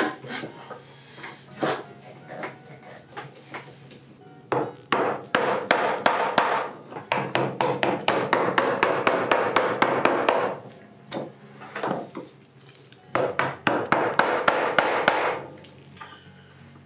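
Hand tools working a hardwood slab: a few scattered knocks from a hand brace boring a hole, then a narrow chisel paring out a small recess around the hole in quick runs of short, sharp cutting strokes, a long run from about four to ten seconds in and a shorter one near the end.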